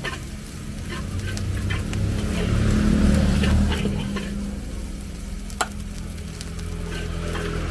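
Metal spatula scraping and clinking against a steel wok as fried rice sizzles in it, with one sharper clank a little past halfway. A low steady rumble runs underneath, swelling briefly about three seconds in.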